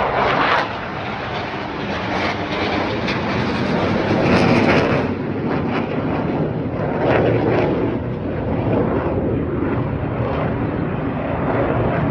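Jet aircraft of the Black Eagles aerobatic team, KAI T-50B trainers, flying past with a loud, steady jet rush that swells about four to five seconds in and again about seven seconds in.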